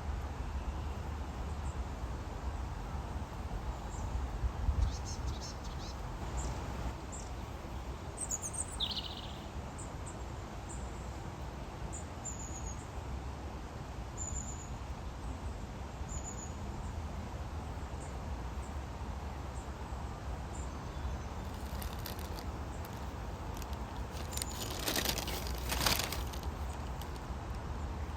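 Small birds chirping a few short notes now and then, over a steady low rumble of outdoor background noise; a louder rustling noise comes near the end.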